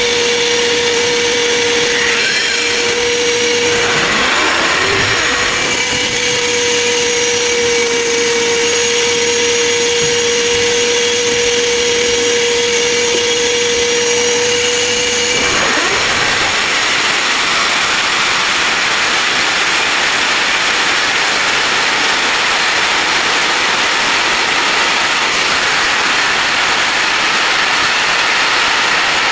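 Diamond core drill boring through a wall, with a vacuum cleaner drawing off the dust at the bit. A steady high whine drops out briefly about four seconds in and stops about halfway, leaving a steady rushing noise from the drilling and suction.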